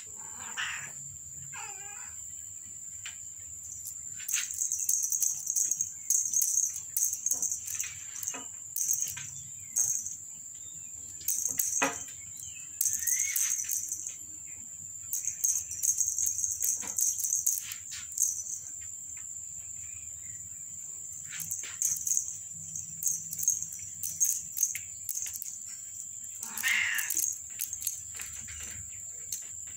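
Small jingle bell on a feather wand cat toy jingling in repeated bursts as cats bat at and grab it, with a few short cat meows, one near the start and one near the end.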